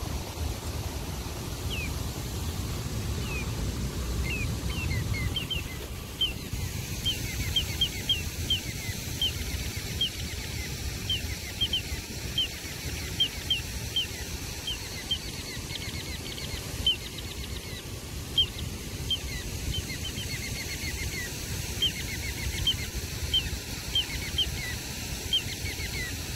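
Little ringed plover calling over and over, short falling whistled notes about once or twice a second, with wind rumbling on the microphone.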